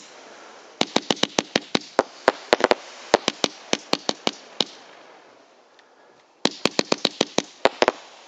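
Super Power Happy Silence World BB49 2001, a 49-shot, 20 mm low-noise angled fireworks cake, firing: rapid sharp pops, about four or five a second, with no big bangs. There is a lull with faint hiss a little past the middle, then another fast volley.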